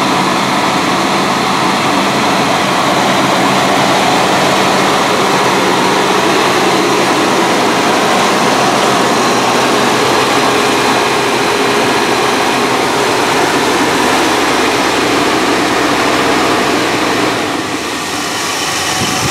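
Dodge pickup's 318 V8 with a one-barrel carburetor running steadily at a raised warm-up idle. Its automatic choke has just opened on its own. The sound dips slightly near the end.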